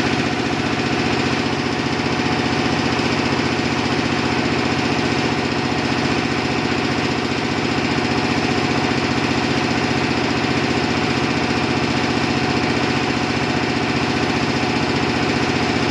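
An engine running steadily with a fast, even pulse, unchanged throughout.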